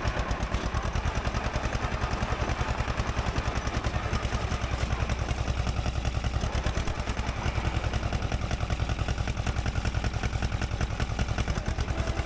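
Fiat 355C crawler tractor's diesel engine running steadily with a rapid, even knocking beat.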